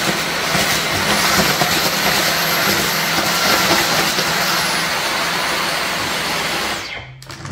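Dyson V15 cordless stick vacuum running in Auto mode with a steady rush of suction and a high whine. The whine steps up in pitch about a second in and drops back at about four and a half seconds, as Auto mode raises the motor's power when it senses more dust. It cuts off near the end.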